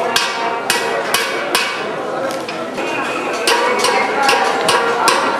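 Hand hammer striking a copper pot, about two sharp ringing metallic blows a second at an uneven pace.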